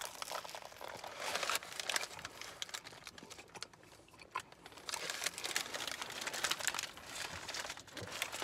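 Paper bag around a flaky meat pie crinkling in the hands as the pie is bitten into and chewed: a run of small crackles that dies down for a moment in the middle, then picks up again.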